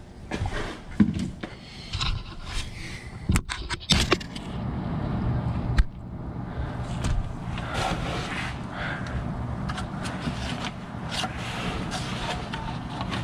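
A funnel and oil bottle being handled at a side-by-side's oil fill during an oil change. Scraping and several sharp knocks come in the first four seconds, then a steadier noise with scattered small clicks.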